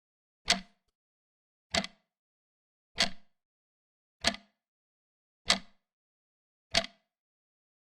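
Large clock ticking: six sharp, evenly spaced ticks about a second and a quarter apart, each with a short ring after it.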